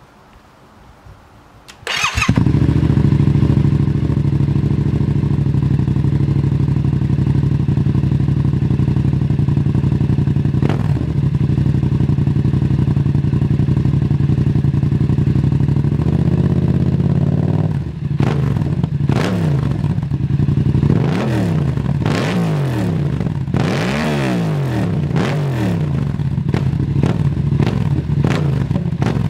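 Yamaha MT-07's parallel-twin engine through an Arrow aftermarket exhaust, starting about two seconds in and settling into a steady idle. From about eighteen seconds on it is revved with a series of quick throttle blips, each rising and falling in pitch, before dropping back to idle near the end.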